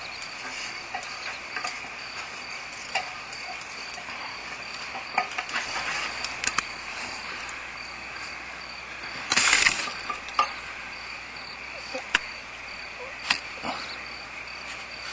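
Scattered knocks, clicks and scrapes of someone handling the owl-nest camera and box, with one louder rustling scrape about nine and a half seconds in, over a steady high insect trill.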